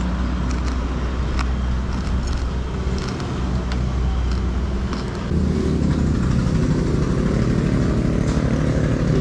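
A motor vehicle engine running steadily, getting louder about five seconds in, with a few light clinks of a spoon or chopsticks against a bowl.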